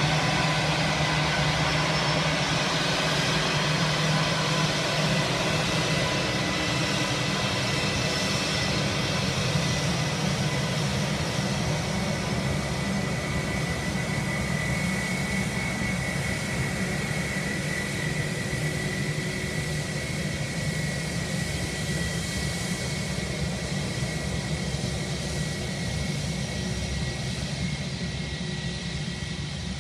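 Airbus A320-200's jet engines running as the airliner taxis: a steady jet rumble with a high, even whine, slowly growing fainter.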